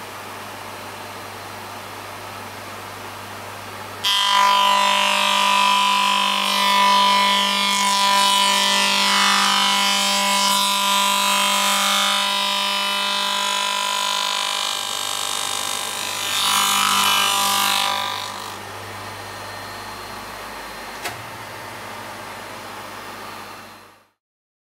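HAFFNER AF 363 end milling machine: the motor runs with a steady low hum, then about four seconds in the cutter bites into a window profile and a loud, high cutting noise with a ringing whine lasts about fourteen seconds before dropping back to the motor's hum. A single sharp click comes near the end, and the sound then cuts off suddenly.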